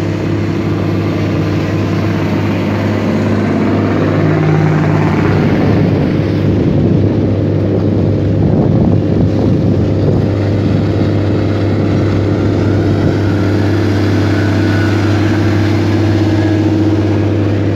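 Engine of a river launch running steadily, heard from on board: a deep, unbroken hum.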